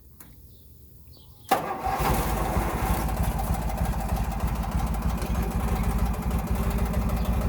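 Garden tractor engine starting: it catches suddenly about a second and a half in and settles into steady running with a fast, even beat.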